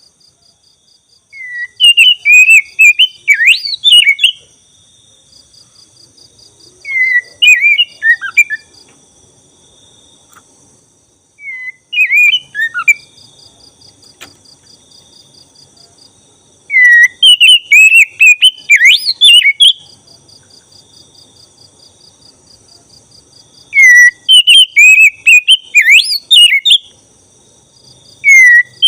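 Black-breasted oriental magpie-robin (kacer dada hitam) in full song, giving loud bouts of rapid, varied whistles and chattering notes. There are five bouts a few seconds apart, with another starting at the end. Through the pauses runs a faint, steady, high, pulsing insect trill.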